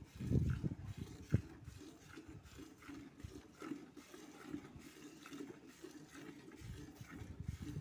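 Buffalo being hand-milked into a steel bucket: short squirts of milk strike the pail in a steady rhythm, about two to three a second. A few louder, low huffs from the buffalo come in the first second and again near the end.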